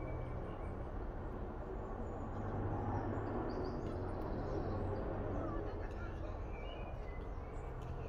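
Outdoor ambience: a steady low rumble with a few faint, short bird chirps.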